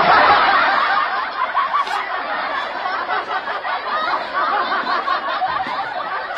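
Audience laughter, many people laughing at once, starting suddenly and holding steady.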